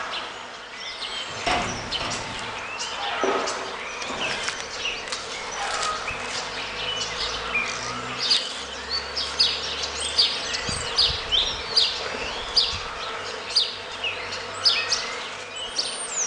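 Honeybees buzzing around an opened hive of a queenless colony that has turned to laying workers. Over the buzz come short, sharp, high chirps, about two a second in the second half, which are the loudest sounds.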